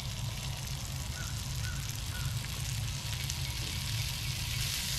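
Hash browns sizzling in hot oil in a pan over a campfire, the hiss growing louder toward the end.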